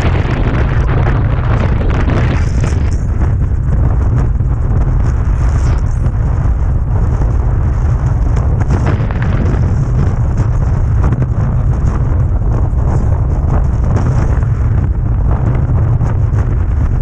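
Strong wind buffeting the microphone: a loud, continuous rumble that overwhelms everything else.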